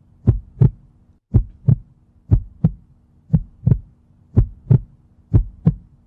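Heartbeat sound effect: paired low thumps, lub-dub, about once a second. A faint steady hum underneath stops about a second in.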